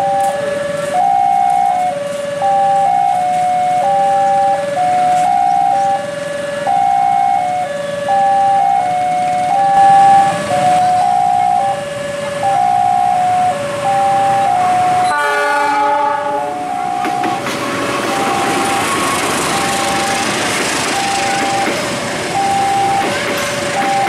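Indonesian railway level-crossing warning sirens chime a fast repeating three-note electronic tune that steps down in pitch. About fifteen seconds in, a train horn sounds for about a second and a half. The rushing noise of a passenger train passing over the crossing then builds while the chime keeps going.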